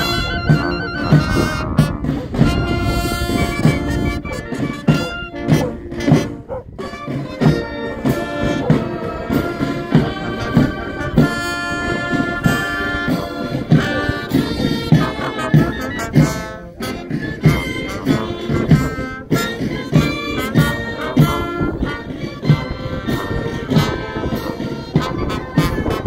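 A march played by brass and woodwind instruments over a steady drum beat.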